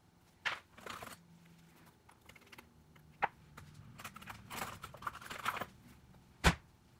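Small tools working on the parts of a Huawei Mate 20 Pro smartphone being taken apart: scattered light clicks and taps with short scraping rustles, and one sharper tap near the end.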